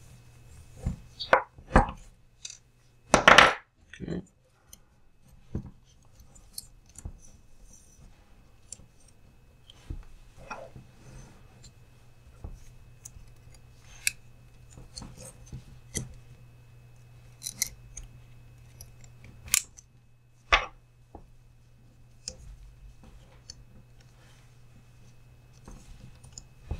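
Scattered light clicks, taps and rubbing of a hex driver and small plastic parts as an RC crawler's front axle is unscrewed and taken apart on a wooden bench, with one louder knock about three seconds in. A faint steady low hum runs underneath.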